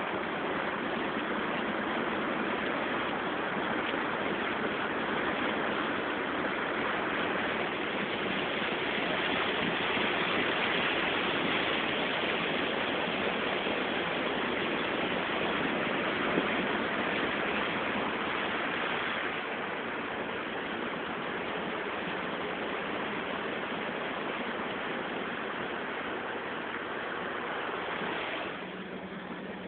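Steady rush and splash of floodwater churned up by an off-road 4x4 wading through a flooded field, with the engine running underneath. Near the end the water noise drops away, leaving a steady engine hum.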